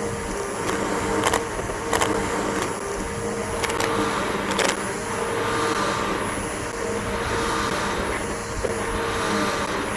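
Bissell BigGreen PowerForce upright vacuum cleaner running steadily on grass, its motor giving a constant hum with a high whine, broken by four sharp clicks in the first half.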